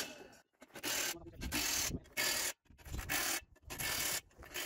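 Hand ratchet wrench worked in short repeated strokes on the bolts of a tractor's rear wheel hub, about five bursts of clicking with short pauses between them.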